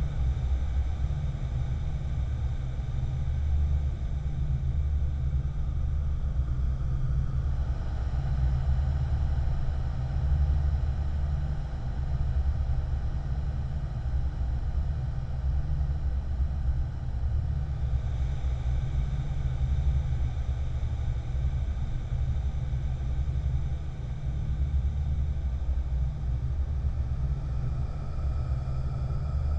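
Dark ambient drone atmosphere: a steady, deep rumble with faint airy, whispery tones above it that shift in colour a few times.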